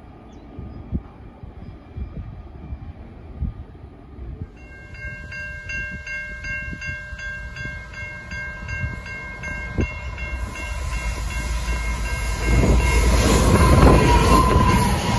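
Diesel freight train approaching and passing close by. About a third of the way in, a high multi-note warning tone begins, pulsing on and off for several seconds. Then the heavy rumble of the lead diesel-electric locomotives builds and peaks as they pass in the last few seconds.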